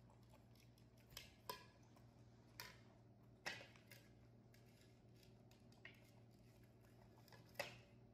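Baby monkeys eating corn on the cob: about six short, sharp clicks and crunches, the loudest near the end, over a quiet room.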